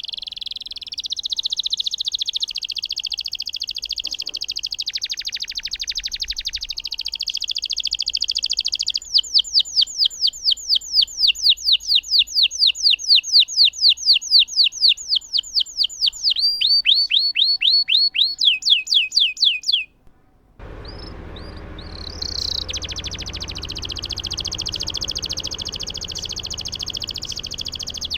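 Domestic canary singing long rolling trills, with a middle stretch of loud repeated sweeping notes about four a second. The song breaks off for a moment about two-thirds through and resumes with more background hiss.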